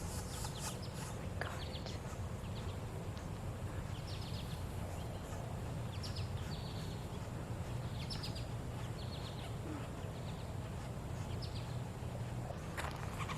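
Birds giving short, high chirps that drop in pitch, coming in small groups every couple of seconds over a steady low rumble.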